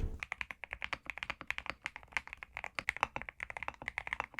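Fast typing on a Zuoya GMK67 mechanical keyboard fitted with Leobog Graywood V3 linear switches. It makes a quick, uneven stream of sharp keystroke clicks, about eight to ten a second.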